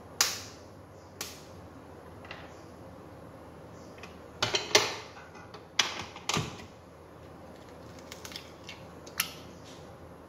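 A dozen or so sharp knocks and clicks on a stand mixer and its stainless steel bowl, with the mixer switched off: the mixer head being raised and eggs being cracked against the bowl's rim. The loudest knocks come right at the start and in a cluster about halfway through.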